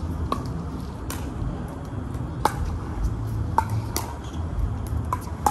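Pickleball paddles hitting the ball in a rally: a sharp pock about every one to two seconds, over a steady low rumble.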